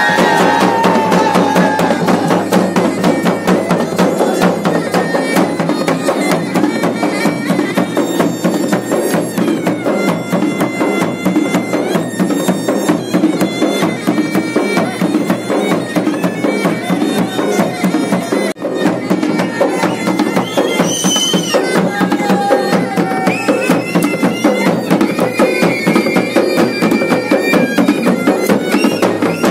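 Garhwali folk band playing a fast dance rhythm: dhol and damau drums beating steady rapid strokes under a masakbaja (bagpipe) holding a drone and playing the melody.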